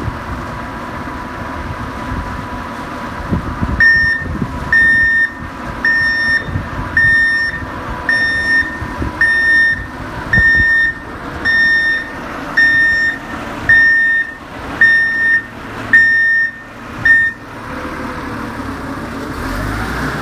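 Vehicle reversing alarm beeping about once a second, a dozen or so high, even beeps, over a steady engine and yard noise; the beeping starts about four seconds in and stops a few seconds before the end.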